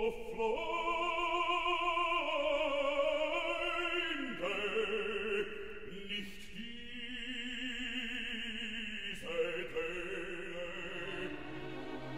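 Operatic singing as background music: a trained voice holds long notes with a wide vibrato, moving to a new note every second or few.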